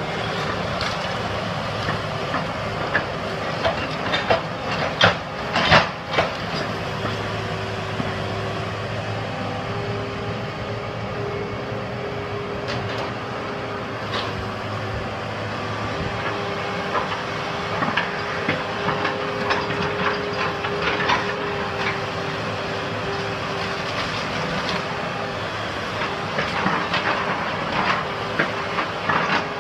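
Hyundai 180LC-3 hydraulic excavator running steadily with a continuous hydraulic whine while its bucket breaks up and loads wooden house demolition debris. Cracks, knocks and crashes of timber and rubble come through, loudest about four to six seconds in, with a run of clattering from about two-thirds of the way through to the end.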